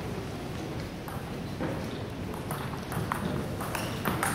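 Table tennis ball clicking back and forth off the rackets and table in a doubles rally, about two sharp ticks a second in an uneven rhythm.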